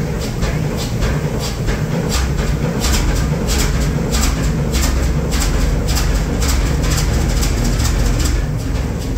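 Fairbanks Morse 32E six-cylinder two-stroke diesel engine running, a deep steady beat overlaid with a regular run of sharp clacks.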